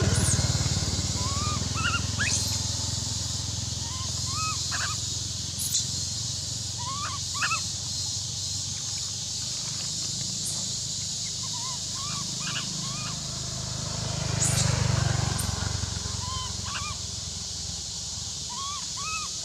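Roadside forest ambience: a steady high hiss of insects with short bird chirps scattered throughout. A passing motorbike's engine fades away in the first couple of seconds, and a low rumble swells and fades about three-quarters through.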